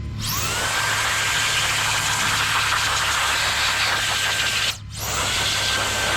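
Small handheld electric air duster spinning up with a rising whine into a steady high whine and rush of air, blowing packed slushy snow out of an RC truck. Near the end it cuts off for a moment and spins up again.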